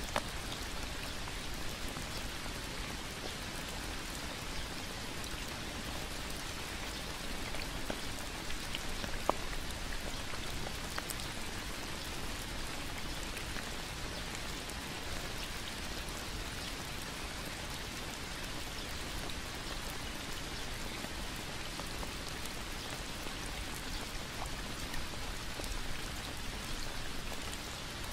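Steady rain falling on leaves and a wet path: an even hiss with scattered drop ticks, one sharper tick about nine seconds in.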